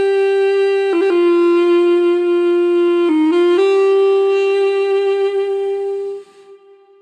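Music: a single reedy wind-instrument line holding long notes. It steps down in pitch about a second in, dips lower around three seconds, returns to the opening note and fades out near the end.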